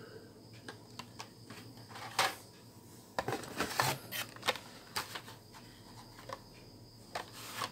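Blister-packed toy cars on their card backings being handled and set down in a cardboard box: scattered light plastic clicks and taps, busiest around the middle.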